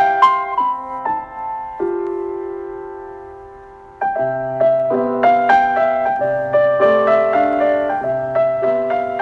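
Background instrumental music of gentle, struck melody notes. About two seconds in a chord is left to ring and fade away, and about four seconds in the tune picks up again over a low bass line.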